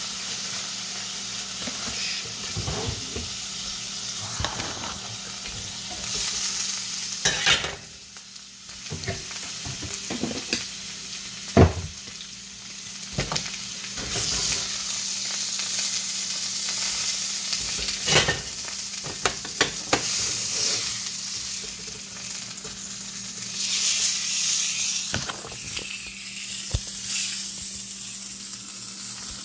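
Food sizzling steadily in a hot frying pan, with scattered sharp knocks and scrapes of a utensil against the pan.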